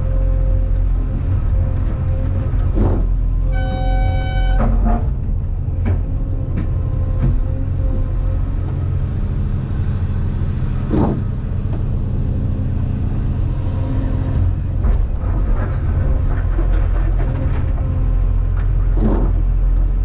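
Cat 390F excavator's diesel engine running steadily under load, heard from inside the cab, with hydraulics working and rock clattering as the bucket dumps blasted rock into a haul truck and swings back to dig. A short, steady tone sounds about four seconds in.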